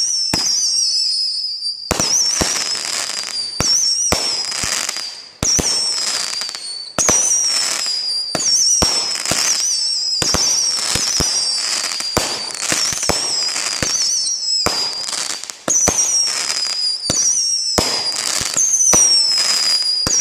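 Fireworks firing a rapid string of whistling shots: each starts with a sharp pop and trails into a high, wavering whistle that falls slightly in pitch, about one shot every second or two, the whistles overlapping.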